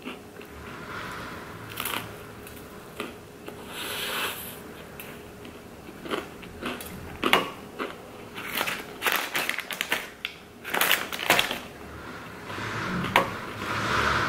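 Close-up chewing and crunching of a pizza slice topped with crunchy hot Cheetos, with sharp crackles of crisp snack pieces being bitten. Crinkling of a snack bag joins in, with a thick run of crackles in the middle and a rustle near the end.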